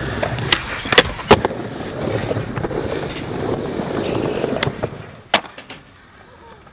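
Skateboard wheels rolling on the skatepark surface, broken by several sharp clacks of the board. The rolling fades out after about five seconds.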